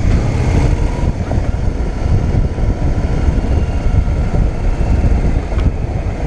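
Wind buffeting a motorcycle-mounted microphone while riding, a heavy uneven rumble, with the motorcycle's engine running steadily underneath.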